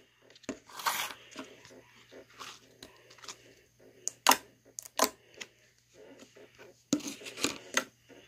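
Clear blue slime peeling out of a plastic tub and being handled on a tabletop: irregular crackling and popping, loudest in a cluster near the end, with knocks of the plastic tub.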